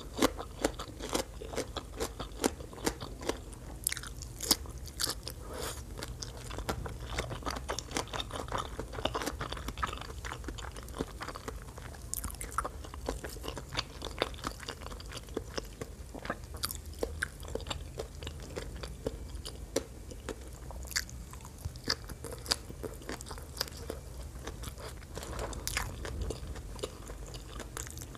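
Close-miked eating of a papaya salad meal: steady chewing with many small wet, crisp crunches and mouth clicks.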